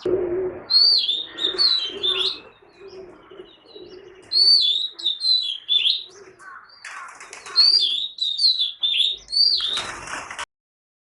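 Oriental magpie robin (doyel) singing: three runs of clear, quickly sliding whistled notes with short pauses between them. The sound cuts off abruptly near the end.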